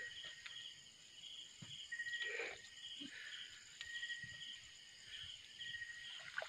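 Night insect chorus of crickets chirping in short, evenly repeated pulses about twice a second, over a thinner steady high trill. A few faint soft knocks and rustles are heard underneath.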